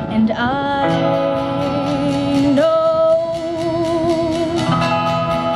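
Live folk-pop band performance: a voice slides up into long held sung notes with vibrato over a strummed acoustic guitar.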